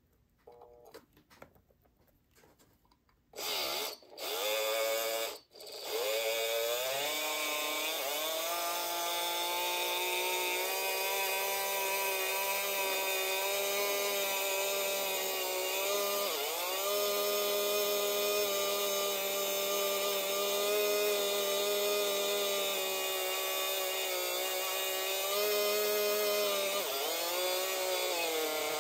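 Small electric motor and gearing of an HO scale model steam locomotive whining as it runs on a test loop at half power, its rods and axles freshly oiled after it struggled to move. It starts with two short bursts a few seconds in, then runs continuously, rising in pitch as it picks up speed and dipping briefly twice.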